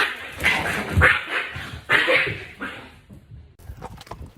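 A dog making a series of short, noisy sounds, about five in the first three seconds, then quieter scattered clicks and taps.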